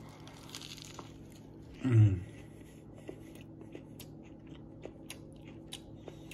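A person biting into a bacon burger and chewing it, with small wet clicks and crunches from the mouth. A brief hum comes from the chewer about two seconds in.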